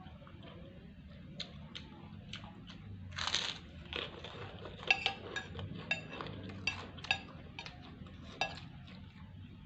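Eating sounds during a meal of rice and rawon beef soup: a spoon clinking and scraping on the plate in a string of sharp clicks, busiest in the second half, with chewing and crunching, and a short breathy rush about three seconds in.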